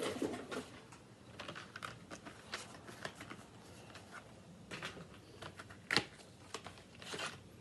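Felt-tip markers clicking and rattling against their plastic box as they are handled, a string of light irregular clicks with one sharper click about six seconds in.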